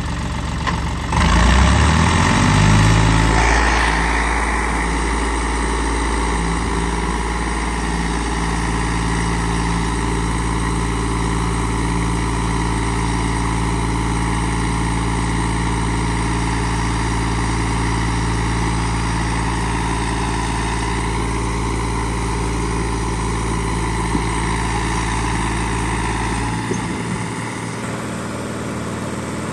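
Eicher 368 tractor's diesel engine revving up about a second in, then running hard and steady under heavy load as it strains to drag a sand-laden trolley out of soft ground, hard enough to lift its front wheels. The engine note eases near the end.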